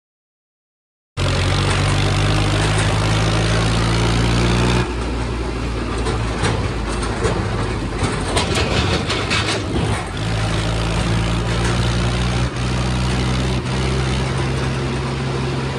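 Mahindra 265 DI tractor's diesel engine running steadily, cutting in about a second in. Through the middle stretch it turns rougher, with a rattling clatter of knocks, before it steadies again.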